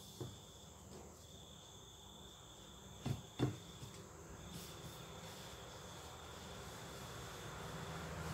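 A cricket's steady high trill, broken briefly a couple of times, with two light knocks a little after three seconds in. A low hum slowly grows louder toward the end.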